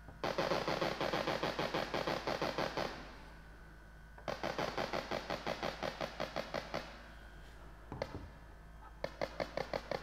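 Ultrasonic parking sensors on a Rivian pickup's rear bumper, picked up by an electronic stethoscope probe and played through a speaker: a rapid clicking, about seven a second, in three runs as the probe is touched to one sensor after another. A sensor that clicks like this is working; one that gives no sound is the faulty one.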